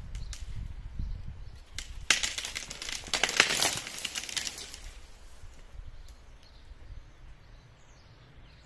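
Leafy branches rustling and crackling for about two and a half seconds, starting about two seconds in, with a few sharp snaps before it; faint bird chirps near the end.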